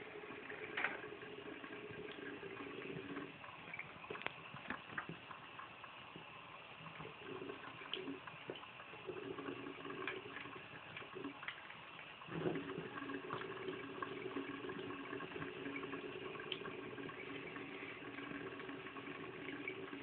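Thin stream of water running from a bathroom faucet into a ceramic sink, its low splashing note cutting out and coming back several times as a cat drinks from and paws at the stream, with a few small taps and splashes.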